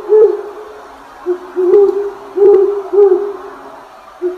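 Rock pigeon cooing: a run of short, low coos, each rising and falling in pitch, repeated about every half second to a second.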